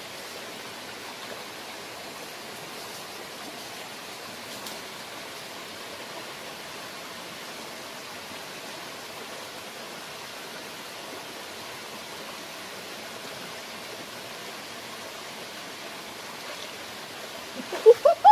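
Steady rush of a shallow stream flowing. Just before the end, a quick run of loud, rising chirping calls from a bird breaks in.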